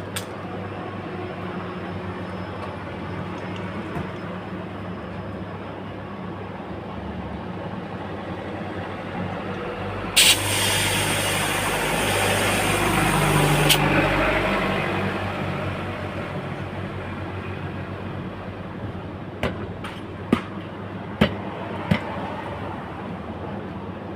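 A motor vehicle passes close by, swelling and fading over several seconds, with a loud hiss that starts and stops sharply about ten seconds in; a steady hum runs underneath, and a few sharp clicks come near the end.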